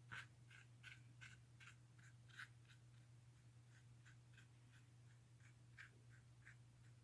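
Faint, quick strokes of a paintbrush on a canvas textured with modeling paste, about two or three a second, over a low steady hum.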